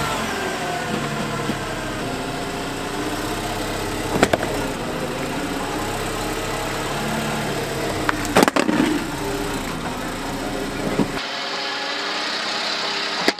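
Volkswagen Jetta's engine running at low speed as its front tyre rolls onto and over a hard plastic Bass Mafia Coffin tackle box, with a sharp knock about four seconds in and another short cluster of knocks about eight seconds in. Near the end the engine sound drops away, leaving a steady hiss.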